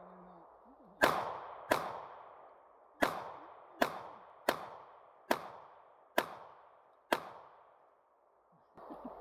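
Eight pistol shots fired at an uneven pace, roughly one a second, each with a short echo dying away after it.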